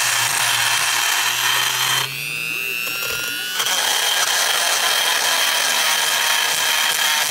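Handheld rotary tool grinding inside a cast-aluminum intake runner while porting a Ford GT40 lower intake: a steady grinding hiss over the tool motor's hum. About two seconds in, the grinding drops away for a second and a half and the motor's whine rises in pitch, then the grinding comes back.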